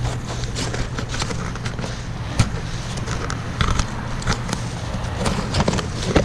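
Tree branches and twigs snapping and crackling in a scattered series of sharp cracks, the loudest about two seconds in and near the end, over a steady low engine hum.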